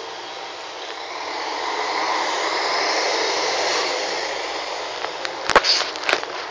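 City street traffic noise, swelling as a vehicle passes close by and then easing off. Near the end come two sharp knocks about half a second apart.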